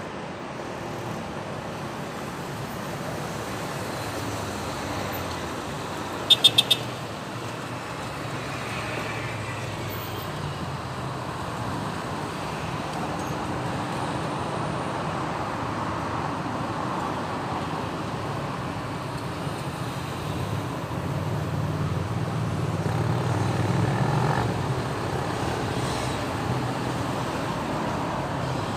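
Street traffic with a steady hum of passing cars. About six seconds in there is a quick run of four short, high-pitched horn beeps. Later a louder engine rumble passes close by.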